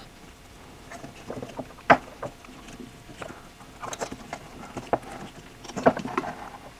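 Handling noise from tying a knot in a recoil starter rope: the cord rubbing and the plastic starter housing clicking and knocking lightly, with sharper knocks about two seconds in and again near six seconds.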